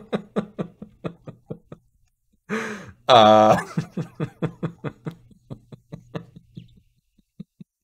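A man laughing in short repeated bursts, breaking into a louder drawn-out laugh about three seconds in, then a run of fading giggles that dies away near the end.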